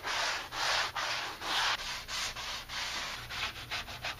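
Hand sanding painted wooden door trim with a sanding sponge, a scratchy back-and-forth rasp at about two to three strokes a second that turns into shorter, quicker strokes near the end. This is scuff-sanding of the old paint so that the new coat will bond.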